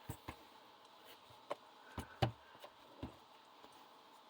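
Scattered light clicks and knocks from a 35mm film camera being handled and turned over, about six in all, the loudest a little past two seconds in.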